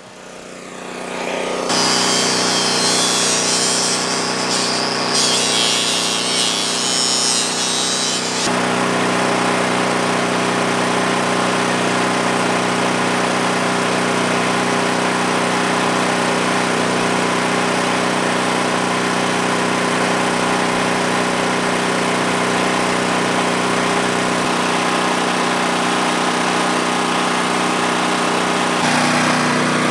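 An electric power tool cuts into polyethylene water pipe for several seconds, a harsh high grinding noise that stops suddenly, over the steady hum of a portable generator. After the cut only the generator and a steady motor run are left.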